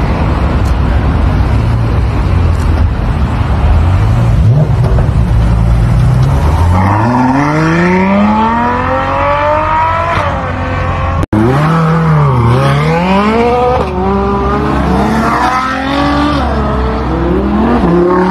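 A Ferrari 812 Superfast's V12 rumbling at low revs, then accelerating hard with its pitch climbing steeply for about three seconds. After a sudden cut about eleven seconds in, a supercar engine revs up and down repeatedly, its pitch falling and rising.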